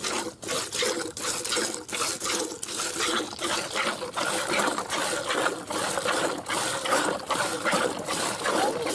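Cow being milked by hand: jets of milk squirting into a plastic bucket in a quick, steady rhythm of alternating squeezes.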